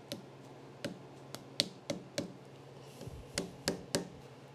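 Soft-faced hammer tapping around the dust cap on the cast-iron spindle housing of a 1951 Cincinnati No. 2 tool and cutter grinder: about ten light, sharp taps at an uneven pace, breaking the paint seal to free the cap.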